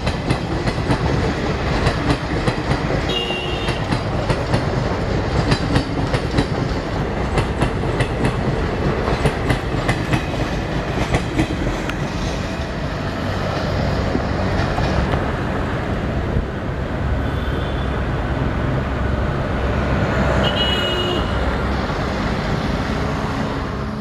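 Passenger coaches of an Indian Railways express rolling past, the wheels clicking rapidly over rail joints. About halfway through, the clicking thins into a steadier rumble, with a few brief high squeals.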